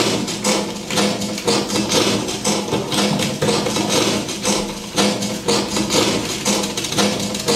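A paper book handled and knocked close to a microphone and played through an amplifier, a performance of sounds made with the book: sharp knocks about twice a second over a low ringing tone.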